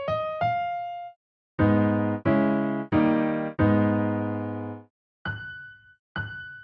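Electric piano playing two single notes stepping upward, then four struck chords, the last held longer, then two higher single notes.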